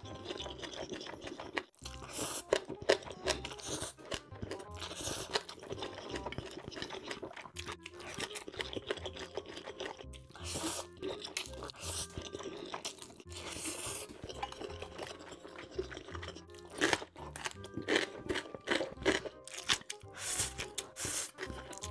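Close-miked eating of black-bean noodles (jjajangmyeon): wet slurping of mouthfuls of noodles and crunchy chewing, over background music.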